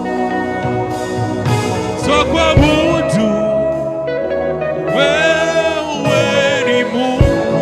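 Gospel worship music: a singer holds long notes with vibrato over a steady instrumental backing.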